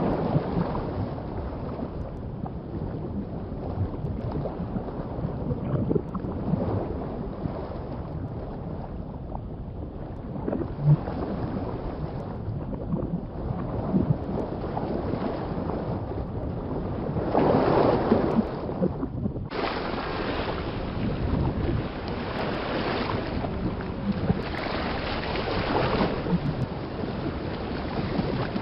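Underwater water ambience: a muffled, rushing wash of water that swells and ebbs, with its biggest surge a little past halfway and an abrupt change in the sound just after it.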